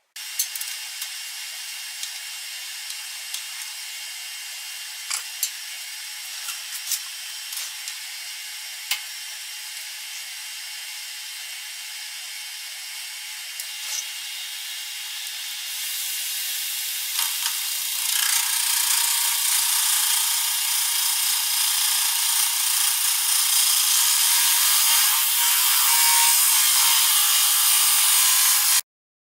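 Metal lathe facing a block of aluminum: a steady hissing cutting noise with scattered ticks and clicks, growing louder about two-thirds of the way through, then cutting off suddenly.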